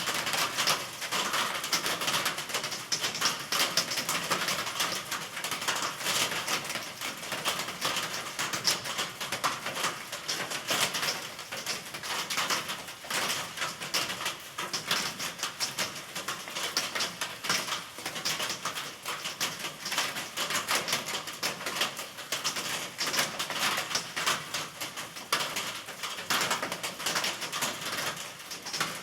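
Steady rain: a dense, even patter of many small drops hitting a surface.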